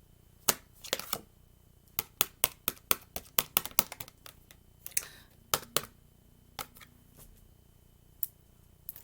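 Tarot cards being handled: a series of sharp clicks and snaps as the cards are shuffled and moved, coming thick and fast about two to four seconds in and more scattered after.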